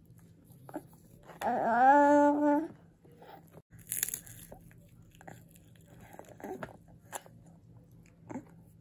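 Baby gumming and biting a crunchy stick of food without teeth: small crunching and wet clicking sounds, with a short crackle about four seconds in. About a second and a half in, the baby gives one drawn-out vocal sound that rises and then holds for about a second.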